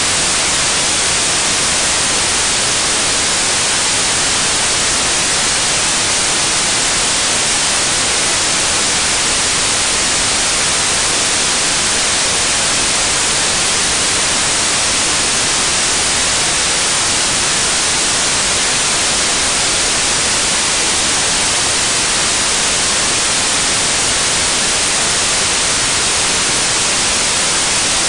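Loud, even static hiss like white noise, unchanging, with no engine note, knock or other sound standing out.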